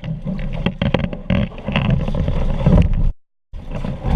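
Wind buffeting the microphone aboard a small sailboat, a loud low rumble with scattered knocks and clatters. The sound cuts out for a moment a little after three seconds in, then returns.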